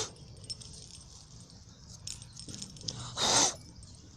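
Two loud, breathy puffs of breath close to the microphone, a short one right at the start and a longer one about three seconds in, with faint light jingling between them.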